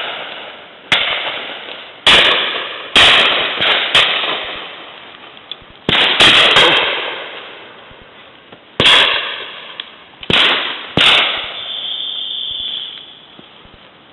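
Shotgun shots: about ten sharp reports in quick irregular succession, some loud and close, others fainter from guns further off, each dying away in a rolling echo over about a second. Near the end a steady high-pitched tone lasts about a second and a half.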